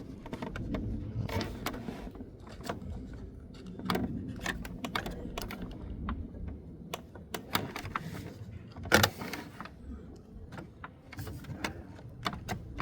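Scattered small clicks and taps of hands handling a syringe and injection tip against plastic printer parts, with one sharper knock about nine seconds in.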